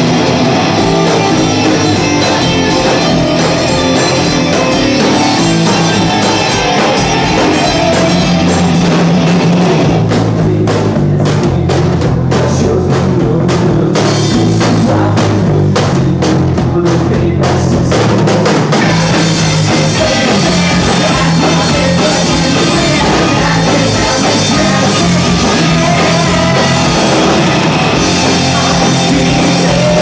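Loud rock music led by a drum kit with guitar. In the middle it thins for several seconds to sharp drum strokes and low notes, then the full band fills back in.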